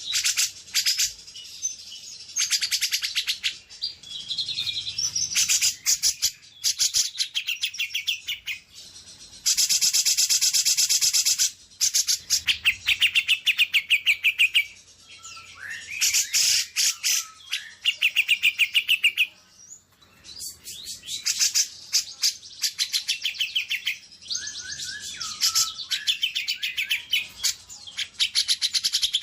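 Songbirds singing in fast chattering trills and quick runs of repeated chips, with a dense buzzing rattle lasting about two seconds around ten seconds in.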